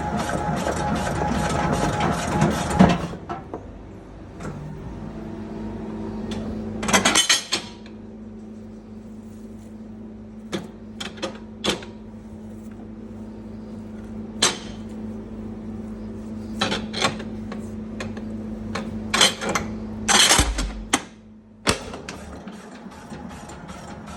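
Kuşbaşı meat-dicing machine running with a rapid mechanical clatter that stops about three seconds in. A steadier, quieter motor hum follows, broken by scattered knocks and clacks and two louder bursts. The clatter starts again near the end.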